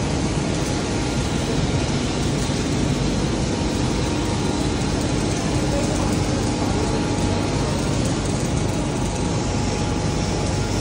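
Steady factory-floor machinery noise: a constant rumble with a faint steady hum.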